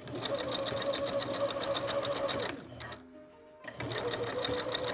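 Electric sewing machine stitching a zigzag seam at a steady, fast stitch rate. It slows and stops about two and a half seconds in, while the fabric and elastic are adjusted, then starts up again about a second later.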